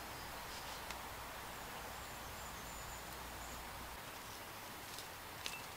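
Quiet woodland background: a faint steady hiss, with a few soft clicks about a second in and near the end.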